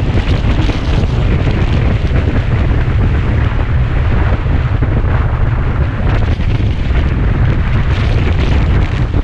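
Heavy, steady wind buffeting on the microphone of a camera riding on a moving Kawasaki Ninja 250 motorcycle.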